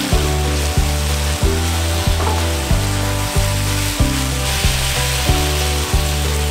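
Prawns and broccoli sizzling in a wok as they are stirred, under background music with a steady low beat.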